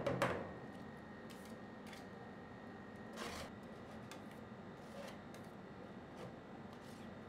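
Metal spatulas chopping on a steel ice cream roll cold plate for the first half second, then quiet scraping and light clicks as the ice cream is pushed and spread across the plate, with one longer scrape about three seconds in. A faint steady high tone runs underneath.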